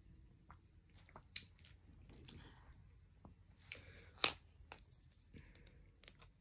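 Small handling sounds of plastic objects: scattered light clicks and brief rustles, with one sharp click a little past four seconds in.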